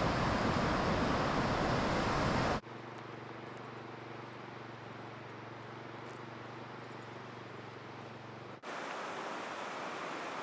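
Steady rush of ocean surf, cut off abruptly about two and a half seconds in by a steady low engine hum from a vehicle, which cuts back to the rush of surf near the end.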